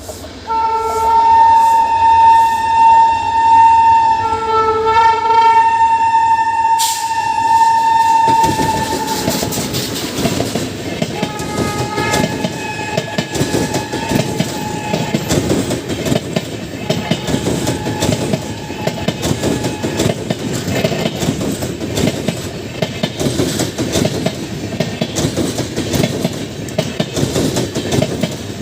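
WAP-7 electric locomotive's multi-tone horn sounding one long blast of about eight seconds, dipping briefly about four seconds in, as the express train passes at speed. The coaches then rush by with a steady rumble and fast clatter of wheels over the rail joints, with a fainter horn beneath it for several seconds.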